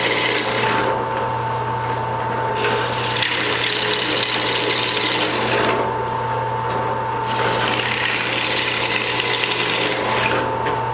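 Shop Fox W1848 floor drill press running with a plug cutter boring into half-inch cedar. The motor hums and whines steadily, while the rasping cutting noise comes in three stretches with short lulls between them.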